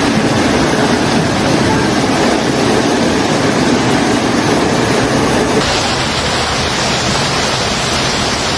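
Loud, steady rushing of floodwater. About five and a half seconds in the rush turns hissier and thinner.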